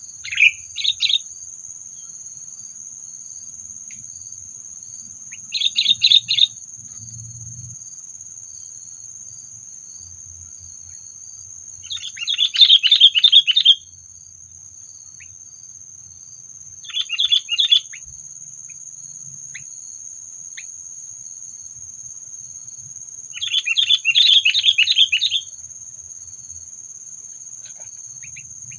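Sooty-headed bulbul (kutilang) calling in five separate bursts of rapid chattering notes, a few seconds apart, the longest about two seconds.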